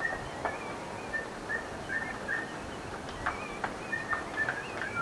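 Birds chirping: short, high chirps and whistles, several a second, with a few sharp clicks among them.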